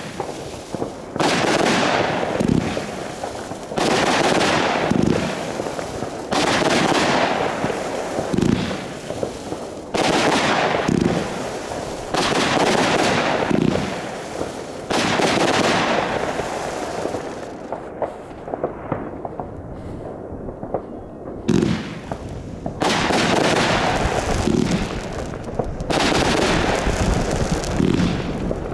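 Consumer fireworks firing: sharp bangs about every one to two seconds, each followed by a crackling tail, with a short lull about two-thirds of the way through.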